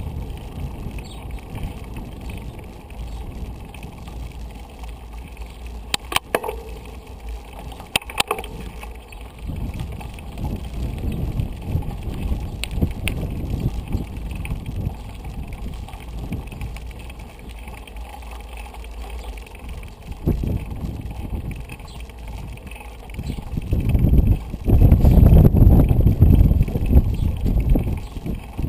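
Wind noise and low rumble on a bicycle-mounted camera's microphone while riding a bicycle, with a few sharp clicks or knocks about six and eight seconds in. The rumble swells loudest about twenty-four seconds in.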